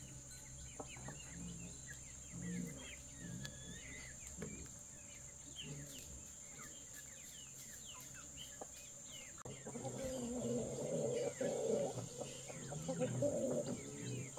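Birds calling and chirping over a steady high insect hum, the calls growing louder from about ten seconds in.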